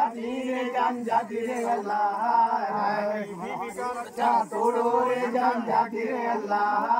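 Men's voices chanting, a continuous sung chant that rises and falls in pitch.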